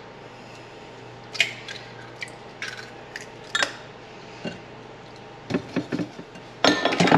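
Kitchen handling sounds: a utensil and glassware clink and tap a few times, about one knock a second, as a glass measuring cup is tipped and scraped into a glass mixing bowl. A quick run of knocks comes near the end.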